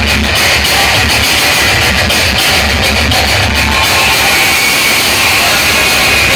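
Music played loud through a DJ sound system during a sound check, with a heavy bass beat pulsing under a dense, distorted upper range.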